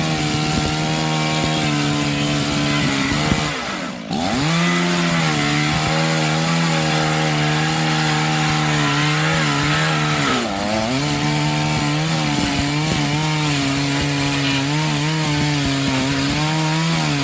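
Chainsaw running at high revs and cutting through wood, its engine pitch dipping briefly about four seconds in and again about ten seconds in before climbing back. The sound cuts off abruptly at the end.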